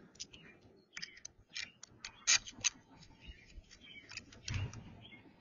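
Dr Otek MT-XR metal detector's head-unit bracket and shaft being handled and fitted together with a small bolt: a scatter of small clicks and taps, two sharper clicks about halfway through and a duller knock near the end.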